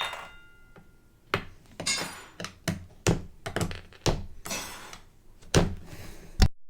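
Plastic Lego pieces being handled and rearranged: a string of sharp clicks, knocks and rattles, with a short ringing clink at the start. The sound cuts off suddenly near the end.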